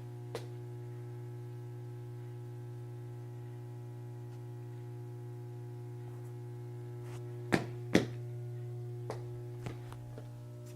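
Steady electrical hum throughout, broken by a few sharp knocks, the two loudest a half second apart about seven and a half seconds in.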